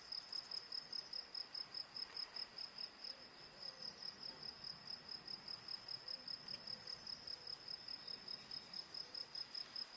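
Insect chirping: a steady, even train of high-pitched pulses, about four a second.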